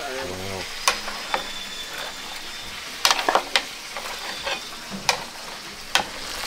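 A large pot of food cooking over a fire, bubbling and sizzling steadily, with sharp metal clicks and knocks of a spoon against the pot, several close together about three seconds in.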